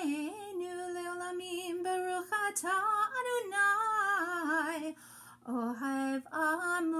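A woman singing a slow song from a synagogue service. She holds long notes that waver in pitch, with a brief break about five seconds in.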